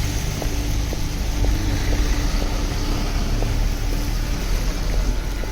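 City street ambience dominated by a steady low rumble of road traffic, with faint short tones above it.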